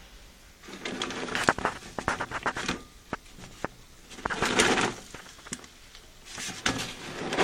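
Crinkling and clicking in several short bursts, about a second in, near the middle and near the end: a paper microwave popcorn bag being handled, with popped kernels rattling inside.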